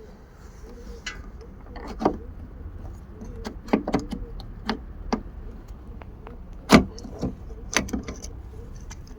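Irregular clicks and clacks of metal and plastic as a VW Golf Mk3's exterior door handle is unbolted and worked out of the door, with the sharpest knock about two-thirds of the way through.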